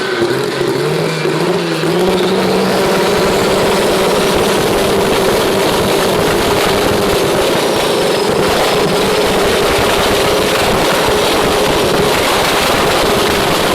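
Chevrolet Opala 4.1-litre straight-six engine rising in revs over the first two seconds, then held steady at high revs.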